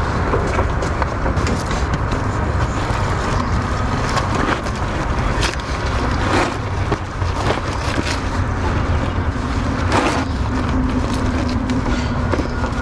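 Black plastic bag crinkling and rustling in irregular bursts as a deflated vinyl inflatable raft is folded, stuffed and pressed down into it, over a steady low rumble.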